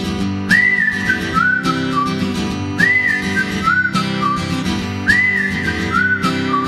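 Background music: a whistled melody over a strummed acoustic guitar. The whistled phrase rises, then steps down, and repeats about every two seconds.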